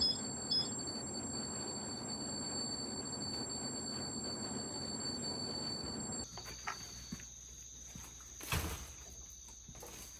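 Portable radio hissing with static, with two short electronic beeps at the start. The hiss cuts off suddenly about six seconds in, leaving a faint high whine, a few light clicks and one thump a couple of seconds later.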